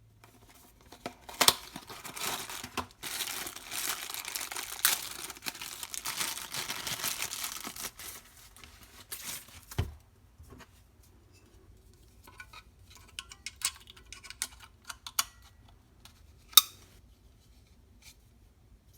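Packaging being torn open and crinkled by hand, with several seconds of continuous tearing and rustling. This is followed by scattered clicks and taps, including one sharp click near the end.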